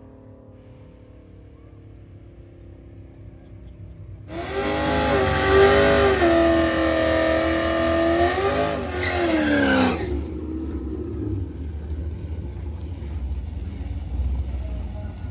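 Chevrolet SS's 6.2-litre V8 doing a burnout: after a few seconds of quiet running, the engine jumps to high revs and holds them for about six seconds over the hiss of spinning rear tyres. The revs then dip and fall away, leaving a low rumble as the car rolls forward.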